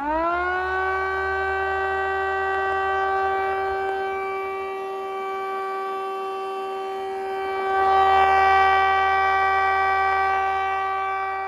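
3D-printed miniature Thunderbolt siren with a 12-volt chopper motor and square horn, run without its blower. It winds up quickly to a steady siren tone with several overtones, held at one pitch, and grows louder about eight seconds in.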